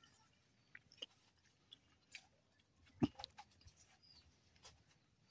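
Faint scattered crackles and taps as a bunch of green bananas is handled on a banana leaf, with one sharper knock about three seconds in.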